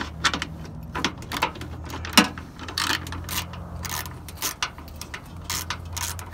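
Ratchet wrench clicking in short, irregular runs as it tightens a headlight-mount bolt on a second-generation Ram pickup. The sharpest click comes about two seconds in. A steady low hum sits under the clicks.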